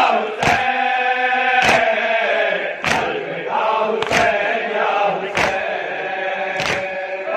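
A group of voices chanting a noha, a Shia lament, with a sharp slap about every 1.2 seconds: the beat of matam, hands striking chests in time with the chant.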